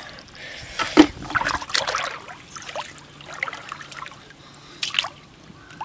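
Shallow rock-pool water splashing and dribbling in short irregular splashes as a hand and a crab move through it, the sharpest splash about a second in.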